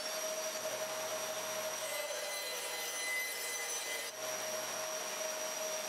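Bandsaw fitted with a 1/2-inch blade cutting through scrap plywood, a steady sawing sound with a short dip about four seconds in.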